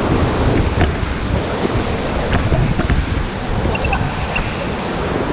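Rushing whitewater of the Ganges around a paddle raft, a loud, steady churning noise, with wind buffeting the GoPro's microphone and occasional faint splashes of paddle strokes.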